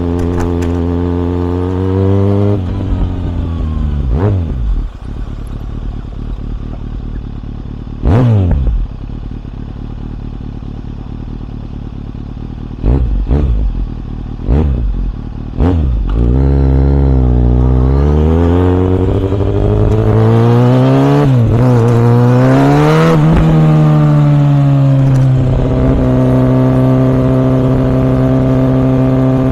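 2014 Kawasaki ZX6R inline-four running through a Yoshimura R77 exhaust while riding. The engine note falls as the bike slows and gives a few short throttle blips past the middle. It then pulls up through the revs with a gear change and settles into a steady cruise near the end. A brief loud whoosh falls in pitch about eight seconds in.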